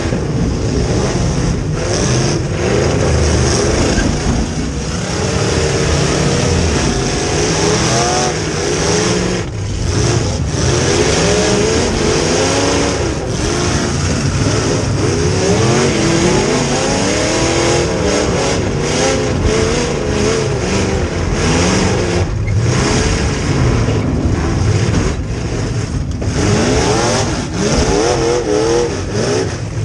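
Demolition derby car's rear-mounted V8 engine revving up and falling back again and again, heard from inside the stripped car.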